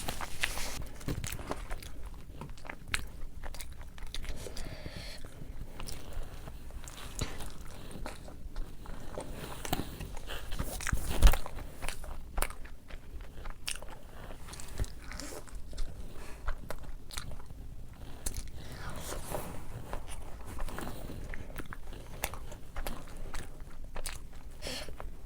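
A person eating rice and fish close to the microphone: wet chewing and crunching with many irregular small clicks, and one louder thump about eleven seconds in.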